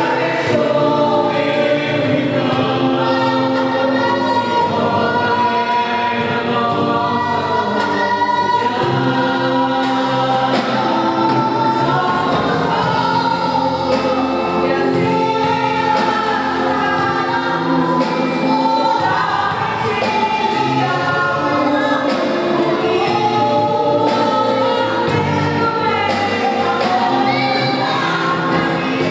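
Church vocal group singing a gospel worship song together, with band accompaniment and a steady beat.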